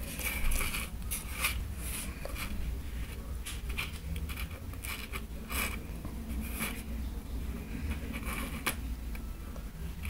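Light, irregular scratching and rustling as hands move a wooden earring about on cardboard and brush gloss glaze onto it, over a steady low hum.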